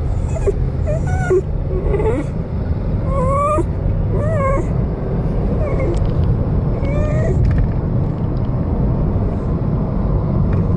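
Elderly dachshund whining in a string of short, wavering high whimpers over the steady low road rumble inside a moving car. The whimpers stop about three-quarters of the way through, leaving only the rumble.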